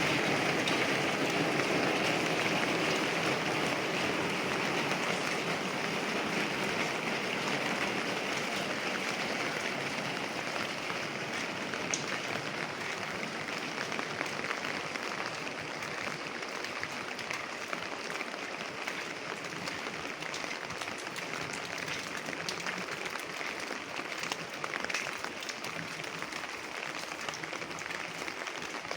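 Steady rain falling, an even dense patter that eases a little over the first half, with an occasional sharp drip or tap on a hard surface.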